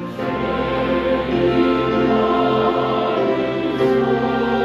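Church choir singing a slow hymn with orchestral accompaniment of violins, flutes, piano and organ. A deep bass and the fuller choral texture come in right at the start, after a string-led passage.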